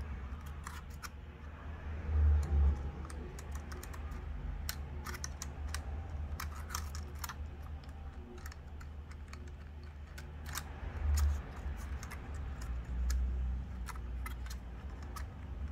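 Irregular light clicks and taps of the DJI Mini 2's small plastic parts being handled as the repaired arm is worked and the drone is put back together, with a few dull low thumps of it being set against the work surface.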